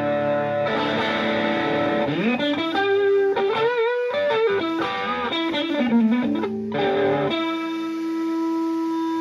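Stratocaster electric guitar through an 'All Seeing Eye' Rangemaster-style treble booster with the boost on, into a Fender Twin Reverb-style amp. Ringing chords, then a slide up about two seconds in into a single-note lead phrase with string bends and vibrato, ending on a long sustained note.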